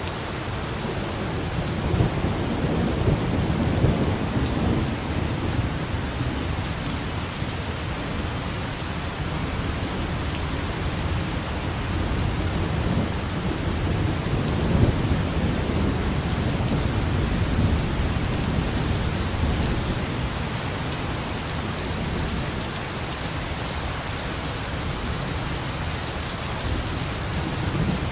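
Heavy rain falling steadily, with rolling thunder rumbling low beneath it. The rumble swells about two seconds in, again through the middle, and once more near the end.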